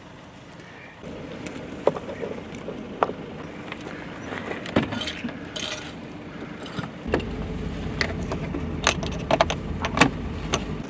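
Portable radio equipment being handled and connected: scattered clicks, clinks and knocks of metal and plastic parts. A low steady rumble comes in about seven seconds in.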